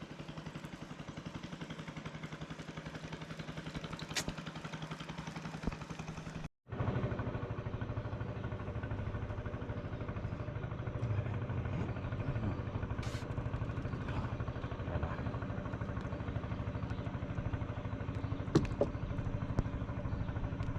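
Small engine running steadily at an even speed, with the sound cutting out completely for a moment about six and a half seconds in, then carrying on, and a few light clicks near the end.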